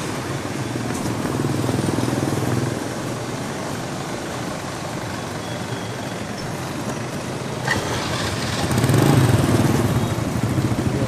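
A road vehicle's engine running while on the move, with road and wind noise. The engine sound swells twice, about two seconds in and again near nine seconds.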